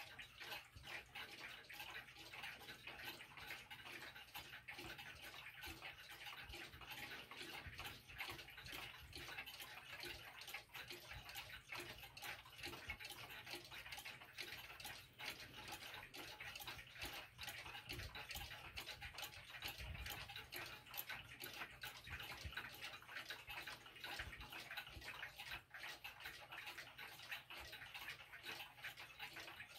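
Many mechanical pendulum clocks ticking at once and out of step, making a faint, dense, uneven patter of ticks.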